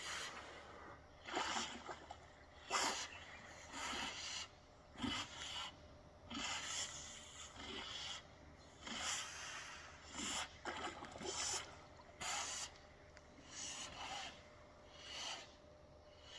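Hippos snorting and splashing in water: a string of short, noisy bursts about every second or so.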